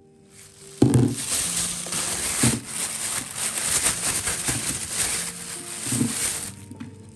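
Thin plastic bag crinkling and rustling as dried salted fish is shaken out of it into a plastic basket. There are three dull knocks as pieces land: about a second in, midway, and near the end.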